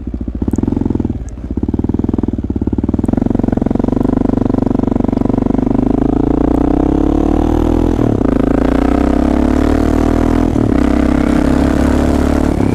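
Honda XR650L's single-cylinder four-stroke engine running as the motorcycle is ridden. Its pitch rises steadily from about four seconds in, then holds, with two brief breaks near the end.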